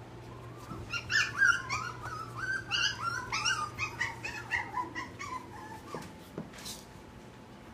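A puppy whimpering and yipping: a rapid run of short, high-pitched cries that starts about a second in and tails off after about five seconds.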